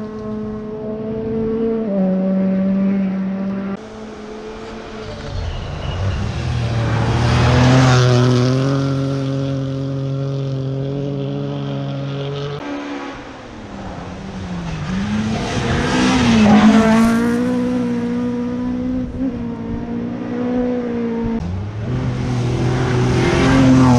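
Rally cars' engines revving hard on a gravel stage, several cars approaching and passing one after another. The pitch climbs through each gear and drops at the shifts, and each car is loudest as it goes by.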